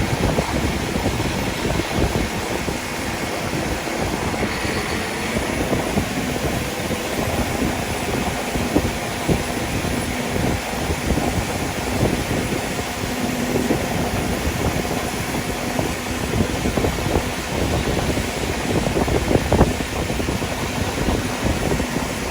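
Harvest machinery running steadily: an engine's even drone with a low hum, and scattered knocks and rattles over it, more of them in the second half.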